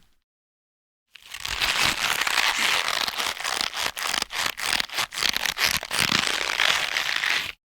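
Rubbery rope being stretched under tension: one long pull of about six seconds, a dense rubbing and crackling with many small sharp ticks, starting about a second in and stopping abruptly near the end.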